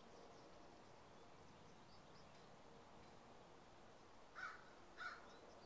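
Near silence with faint high bird chirps, and a bird giving two short harsh calls about half a second apart near the end.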